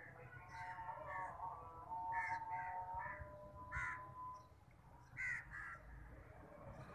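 Crows cawing: about four short, harsh caws in quick succession around two to four seconds in, then two more just past five seconds.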